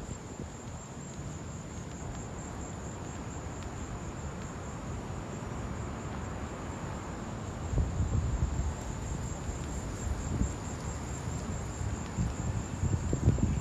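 Insects singing: a steady, high-pitched trill with a faint even pulse. From about halfway, low irregular rumbling comes and goes beneath it.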